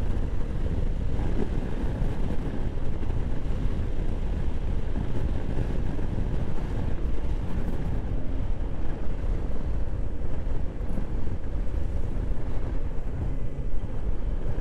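Steady wind buffeting on the microphone while a Honda PCX scooter rides along at speed, its single-cylinder engine and tyre noise underneath.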